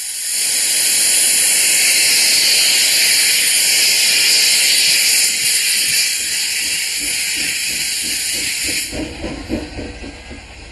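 Steam locomotive letting off steam in a loud, steady hiss that cuts off about nine seconds in, followed by a quick run of low pulses and a rumble.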